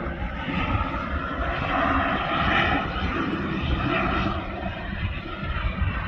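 Several helicopters flying at a distance, a steady engine and rotor sound that swells a little a couple of seconds in, with wind rumbling on the microphone.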